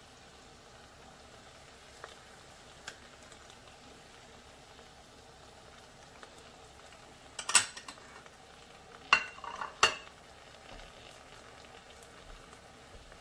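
A small glass prep bowl clinking as it is handled and set down on the counter: three sharp clinks in the second half, the last two ringing briefly. A couple of faint ticks come earlier.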